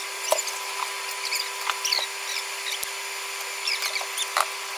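A spoon scraping and clinking against a saucepan and bowls in short, scattered strokes, over a steady electric hum.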